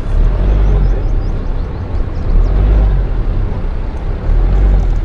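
Jeep Compass Trailhawk SUV driving over a dirt off-road track: a heavy low rumble that swells and fades every second or so, with wind buffeting the outside-mounted camera's microphone.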